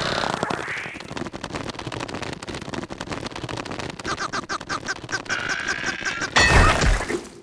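Cartoon earthquake sound effects: a rapid, continuous rattling clatter of shaking ground. About four seconds in comes a run of short squeaky cartoon vocal cries, and a loud low thud or rumble hits near the end.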